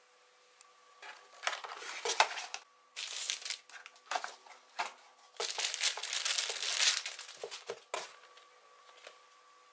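Clear plastic bag crinkling as a hard-shell headphone carrying case is unwrapped from it, in several rustling spells, loudest a little past the middle and stopping about eight seconds in.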